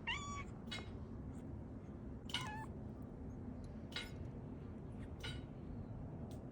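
A domestic cat meowing twice, about two seconds apart, with a few short clicks in between, asking for its treat.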